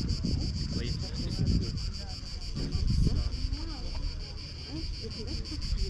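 Cicadas buzzing in a high, steady chorus that pulses evenly several times a second, over low wind rumble on the microphone and faint voices in the background.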